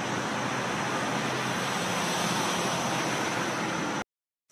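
Steady outdoor background noise, an even hiss with a faint high steady tone in it, cutting off suddenly about four seconds in.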